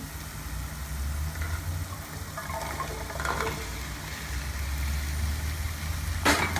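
A low steady hum under faint sizzling of oil in a frying pan, with a sharp clatter near the end.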